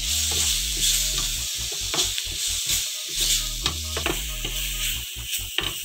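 Onions, tomato and ground spices sizzling in a hot frying pan while a wooden spatula stirs and scrapes them. The sizzle is a steady hiss, broken by irregular scraping strokes of the spatula against the pan.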